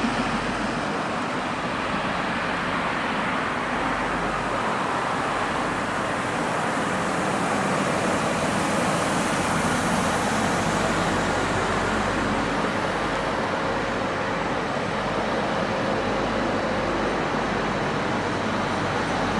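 TER regional train rolling past on the tracks close by: a steady rushing rumble of wheels on rail that brightens briefly about ten seconds in as the cars go by.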